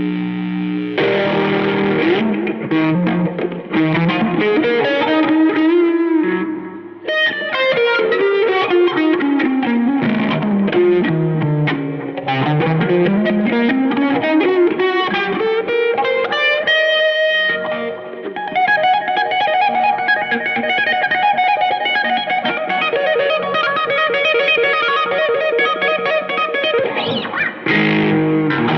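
Fender Strat electric guitar played through effects pedals into an Egnater Tweaker valve amp. A long run of notes falls in pitch and then climbs back up, followed by fast repeated notes from about two-thirds of the way in.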